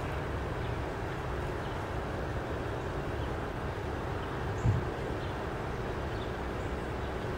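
Steady low outdoor background rumble, with one dull thump about four and a half seconds in.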